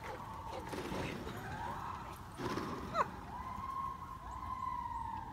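Gibbons singing: overlapping long held notes that glide up and down, with a sharper, louder sweeping call about three seconds in.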